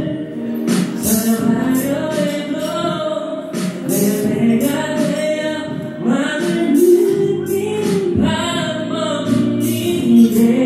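A man and a woman singing a Korean love-song ballad as a duet into handheld microphones, over instrumental accompaniment with light high percussion ticks.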